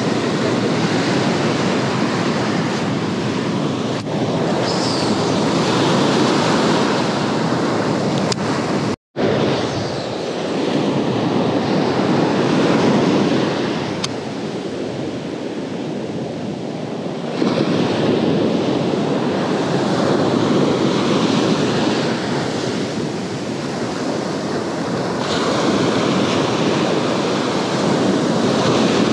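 Ocean surf breaking and washing up a sandy beach, swelling and easing, with wind buffeting the microphone. The sound cuts out for a moment about nine seconds in.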